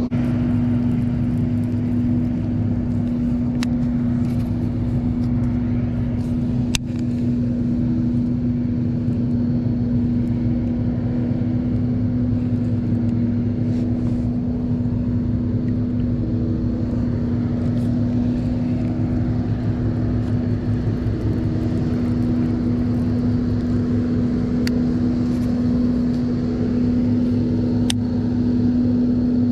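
Steady motor hum at one constant pitch that never rises or falls, with a few faint clicks.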